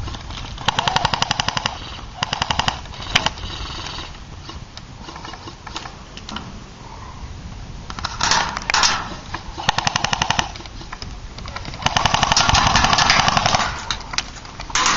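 Airsoft guns firing full-auto bursts: rapid, even strings of shots in several bursts, the longest lasting nearly two seconds near the end.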